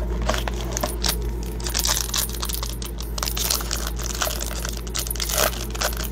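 A foil-wrapped Donruss Elite trading-card pack crinkling and tearing as it is handled and ripped open by hand. The crackle is most dense about two seconds in.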